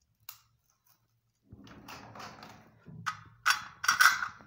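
Rustling and scraping from a hand-held battery pack and its wire being handled during soldering: one short click near the start, then a run of scrapes that grow louder near the end.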